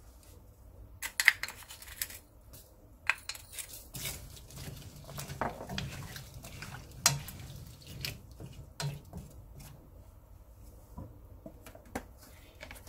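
A spoon stirring diced potatoes and carrots in water in a frying pan: irregular clinks and knocks of the spoon against the pan and the vegetable cubes, with sharper clicks about a second in and about seven seconds in.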